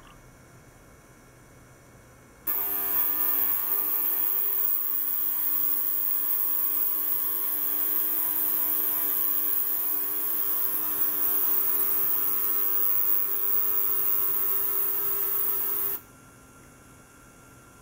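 Benchtop ultrasonic cleaner running with water in its tank: a steady buzzing hum over a high hiss. It switches on suddenly about two and a half seconds in and cuts off about two seconds before the end.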